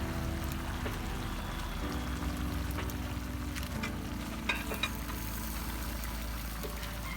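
Vegetables sautéing in a hot pan, a steady crackling sizzle, under a faint background music bed; two sharp clicks about four and a half seconds in.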